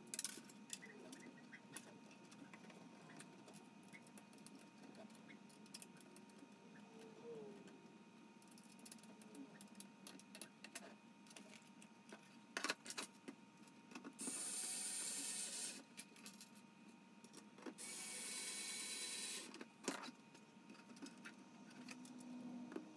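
Light clicks and taps of 3D-printed PLA planks and small M3 screws being handled. A cordless electric screwdriver runs twice in short bursts of about a second and a half each, a little past halfway through and again a few seconds later.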